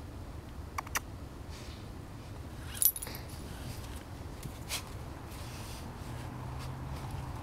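Metal dog-collar tags jingling in a few short clinks, the loudest about three seconds in, as a dog rolls about on its back in the snow.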